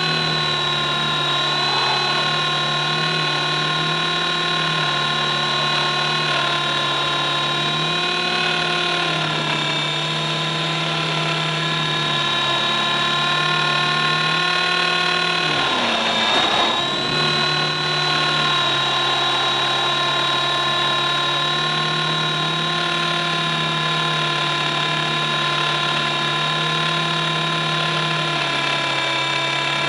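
E-Razor 450 electric RC helicopter's motor, gears and rotor in flight, heard from a camera mounted under it: a steady whine of several pitches. About halfway through the pitch briefly dips and sweeps back up within a second or two.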